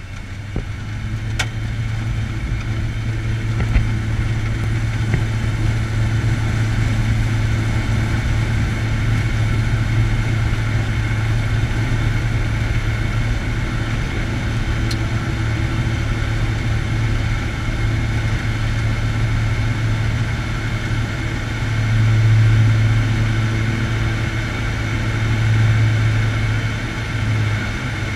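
Air Tractor 502's PT6A turboprop engine and propeller running steadily, heard from inside the cockpit as the plane rolls along a dirt strip. The low propeller drone swells twice near the end.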